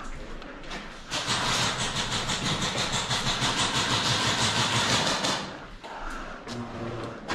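Airsoft gun firing on full auto: one long, very rapid burst starting about a second in and lasting about four seconds.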